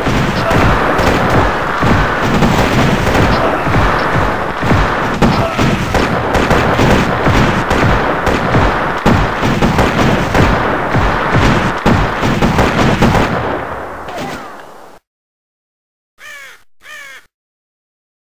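Battle sound effects: dense gunfire and the noise of fighting, fading out a little before the end. After a moment of silence, a crow caws twice.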